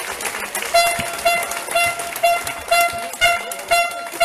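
Spectators' rhythmic cheering: a horn toots one short note over and over, about twice a second, with hand claps on the beat.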